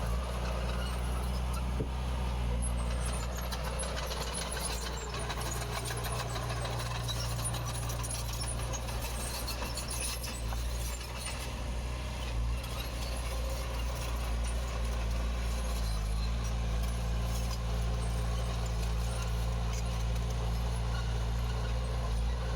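Heavy diesel engine of earthmoving machinery running steadily under load, with scattered light clicks and rattles over it; the engine note shifts slightly about two-thirds of the way through.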